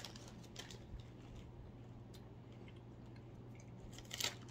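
Faint crunching of crunchy pizza-flavoured crackers being chewed, scattered quiet crackles with a louder cluster of them about four seconds in, over a low steady hum.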